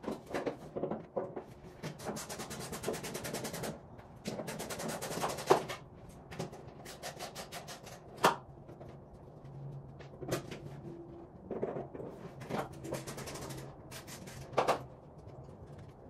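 Hand-tool and parts-handling noises from work on a truck: two runs of rapid clicking a few seconds in, then several single sharp knocks and clanks.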